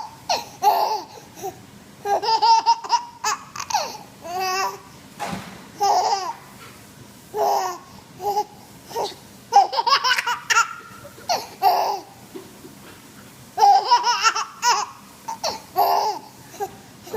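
A baby laughing in repeated fits, eight or so bursts of giggling with short pauses between.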